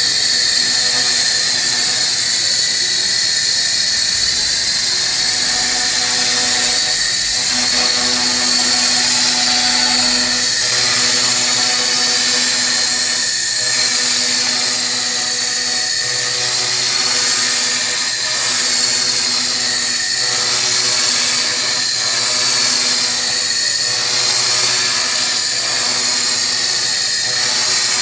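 Handheld fiber laser cleaner ablating rust from metal: a loud, steady high hiss with a wavering whine, over a lower tone that swells and fades every two to three seconds.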